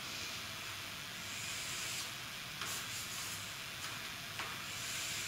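Chalk drawing lines on a chalkboard: a few faint scratchy strokes over a steady hiss.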